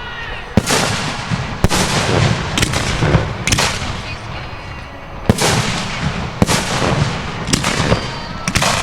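Fireworks bursting in a display: a string of about eight sharp bangs roughly a second apart, each trailing off, with a continuous low rumble of further bursts between them.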